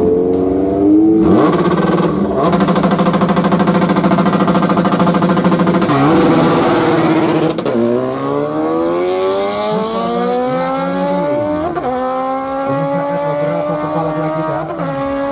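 Superbike drag-racing motorcycle revving at the start line and holding high revs for a few seconds. It then launches with a rush of noise and pulls away down the strip, its engine note climbing steadily with brief breaks at the gear shifts.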